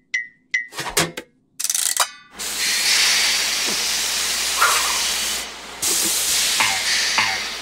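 Cartoon steam-machine sound effects: a few sharp clicks and knocks, then about two seconds in a steady loud hiss of escaping steam starts as the steamer runs. A few short squeaks sound over the hiss near the end.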